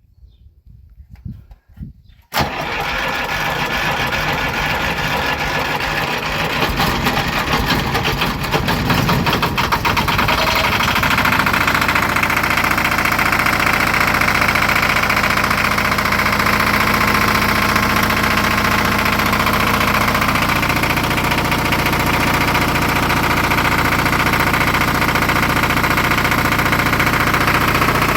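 Old FIMAG 10 kVA diesel generator engine started after sitting unused for 13 years. It cranks and fires roughly for several seconds, then settles into a steady run.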